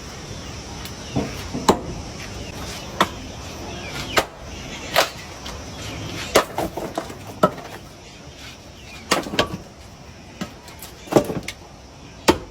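A series of irregular sharp knocks and clicks, about one or two a second, over a steady hiss.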